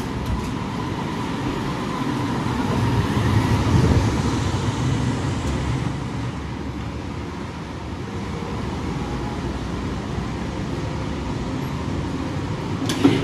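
Steady rumble of vehicle noise that swells and fades about four seconds in, with a sharp knock near the end.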